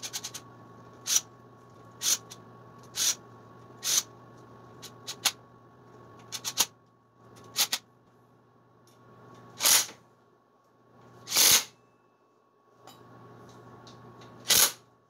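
Tool work on a scooter's rear swingarm bolts: sharp metallic clicks, about one a second for the first few seconds, then scattered clicks and two longer rasping strokes, over a faint steady hum.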